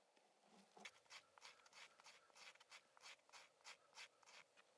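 Knife blade shaving thin curls off a piece of pale wood for tinder: quiet, quick scraping strokes, about three a second, starting about a second in.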